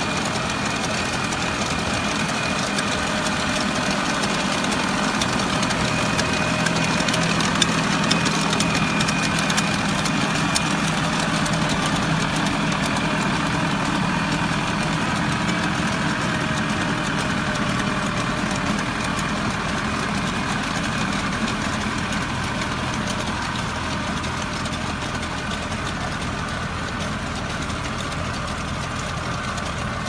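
Tangland TL1004 farm tractor's four-cylinder turbocharged diesel engine running steadily under load while it pulls a rotary tiller through the soil, getting slightly fainter near the end.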